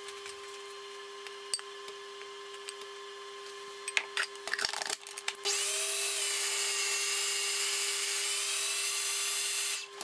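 Food processor motor switched on about halfway through, after a few clatters of handling, and running for about four seconds with a steady high whir that wavers slightly in pitch as it mixes flour into cake batter, then stopping just before the end.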